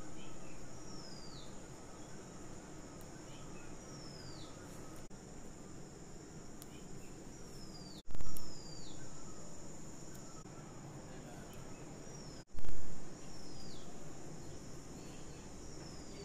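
Background hiss with a bird repeating a short falling whistle every couple of seconds over a thin steady high tone, broken by two brief loud thumps about eight and twelve and a half seconds in.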